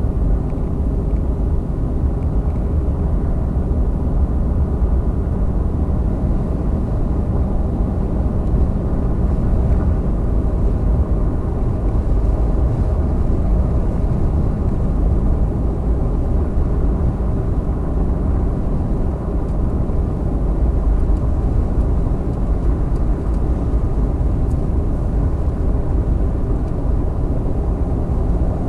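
A vehicle driving at a steady pace: constant low engine and road rumble that holds even throughout, with no change in pitch.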